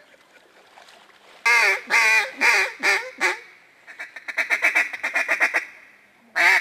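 Mallard duck call blown by a hunter: after a quiet start, five loud quacks about a second and a half in, then a quicker run of short quacks, and another loud string of quacks beginning near the end.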